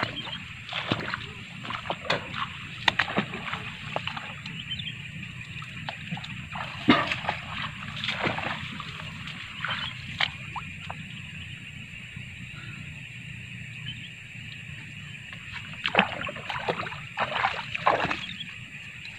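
Shallow rice-paddy water splashing and sloshing in irregular bursts, the sharpest clustered near the start, in the middle and near the end, over a steady high-pitched hiss.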